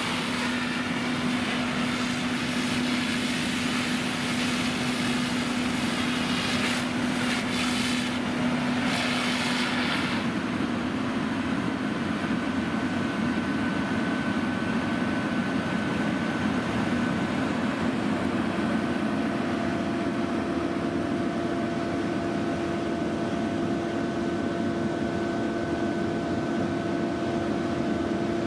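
Fire apparatus diesel engines running steadily at pumping speed, a continuous engine hum. For about the first ten seconds the hum lies under a steady hiss; after that the hiss fades and the hum takes on a different, slightly higher set of steady tones.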